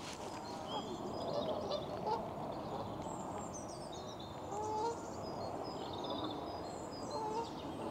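Lakeside birds: a few short rising calls from waterfowl, about three of them, over high chirping from small birds, with a steady outdoor hiss underneath.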